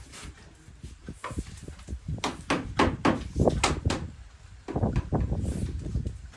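A quick run of about seven sharp knocks near the middle, with a few more later and low rumbling around them, typical of hammering on the wooden and bamboo frame of a bed being assembled.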